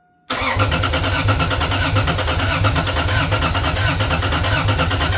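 Toyota 2JZ-GE straight-six cranking on its starter motor, an even rhythmic churning that starts suddenly and does not catch. A leaking fuel line keeps it from building fuel pressure.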